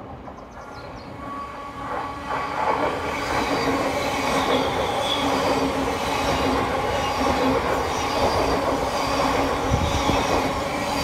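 Thameslink Class 700 electric multiple unit approaching and passing along the platform. The sound of the train on the rails grows louder over the first three seconds, then holds as a steady loud rush with a few steady tones running through it.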